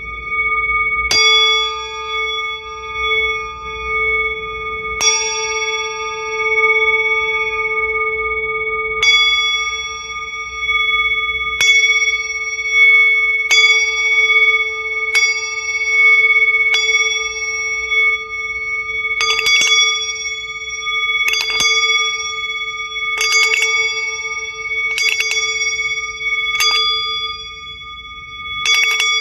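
Ringing metal bells played as meditative music: one steady low ring with higher tones above it, struck again every two to four seconds. From about two-thirds of the way in, each strike becomes a quick rattling cluster of hits, about every two seconds.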